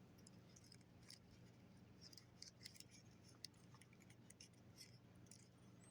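Near silence with faint, scattered small clicks and scratches: a 1/4-ounce weight being handled and pressed back into its cavity in a balsa fishing lure.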